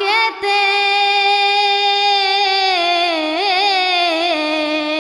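A woman singing a jhumur folk song. After a brief break she holds one long note, wavers through an ornament about three seconds in, then steps down to a lower held note.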